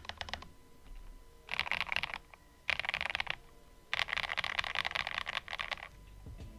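Typing on a mechanical keyboard fitted with stock, unlubed KTT Mint switches (nylon bottom housing, polycarbonate top, POM stem): quick bursts of keystrokes, three of them after a short pause, the last and longest ending about a second before the end.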